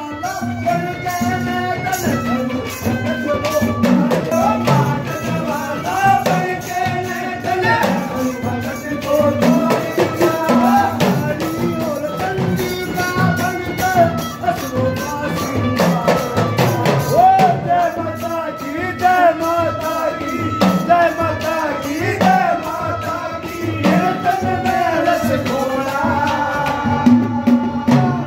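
Devotional bhajan kirtan music in a folk style: a melody that slides and bends in pitch over a steady beat of deru hand drum and ghada clay-pot percussion, with a banjo.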